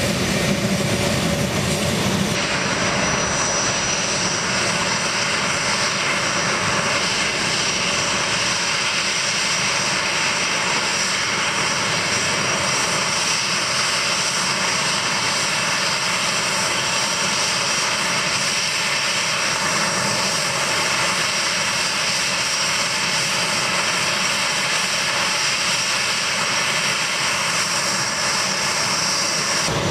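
A-10 Thunderbolt II's twin General Electric TF34 turbofan engines running on the ground, a steady high whine over jet rush. The sound shifts abruptly about two seconds in.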